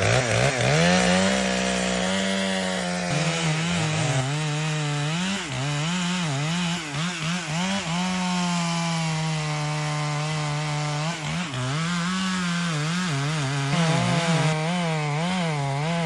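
Chainsaw running at high throttle and cutting wood. Its engine pitch holds steady for stretches, then dips and recovers again and again as the chain bogs in the cut.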